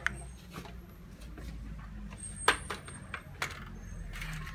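A few sharp plastic knocks and clicks as a Dyson V10 cordless vacuum is handled and brought against its wall-mounted dock. The loudest comes about two and a half seconds in and another about a second later, over a low steady hum.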